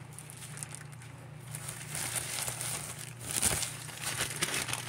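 Clear plastic bag crinkling as it is handled, starting about a second and a half in and loudest a little past the middle.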